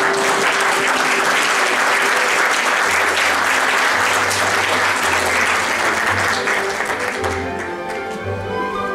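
Audience applauding over orchestral scene-change music. The applause dies away about seven seconds in, leaving the music playing.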